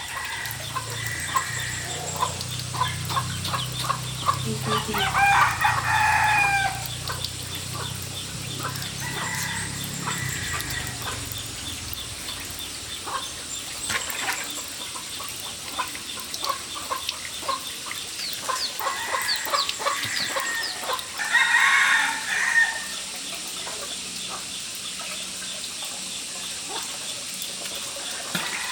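Rooster crowing twice, about five seconds in and again past twenty seconds, with chickens clucking in between.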